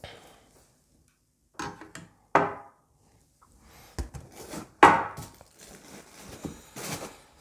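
Hands rummaging in a cardboard shipping box, giving scattered rustles and scrapes of cardboard and packing with short quiet gaps between them. A sharp knock comes about four seconds in, and the loudest scrape follows just after it.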